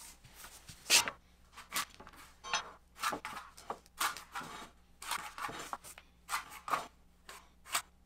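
Metal speed square being set down and slid along 2x4 lumber while a carpenter's pencil scratches layout marks across the wood: about a dozen irregular short clicks, taps and scrapes, the sharpest about a second in.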